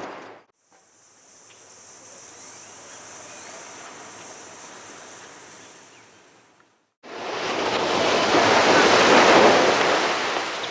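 Ocean surf breaking on a beach. The surf fades out at the start, and a quieter stretch with a steady high-pitched hiss follows. About seven seconds in, after a moment of silence, loud surf comes back.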